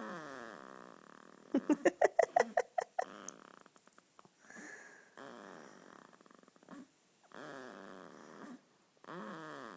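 Two-week-old newborn baby snoring in sleep: a run of short breaths, several with a pitched tone that falls. About a second and a half in comes a loud rattling snore made of rapid pulses, roughly eight a second.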